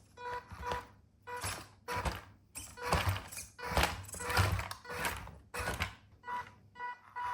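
Background music with a steady, repeating beat.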